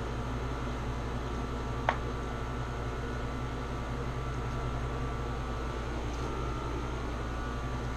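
Steady low mechanical hum of a running fan, with one short sharp click about two seconds in.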